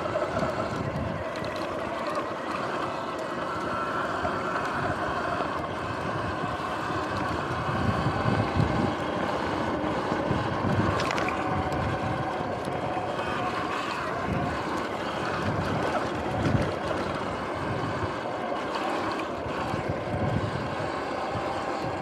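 Electric dirt bike riding along a dirt track: a faint motor whine that drifts up and down in pitch with speed, over wind rush on the microphone and tyre noise, with repeated low rumbles.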